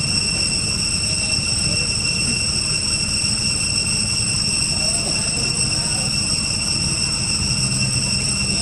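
Steady, high-pitched buzzing drone of cicadas, unbroken and even in level, over a low rumbling background.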